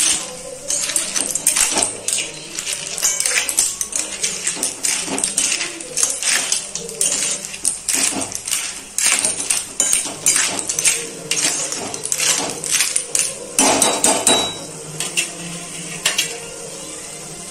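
Metal spoon stirring shell-on clams in a metal kadhai: a quick, irregular run of scrapes and clinks of spoon against pan and shells, which stops shortly before the end.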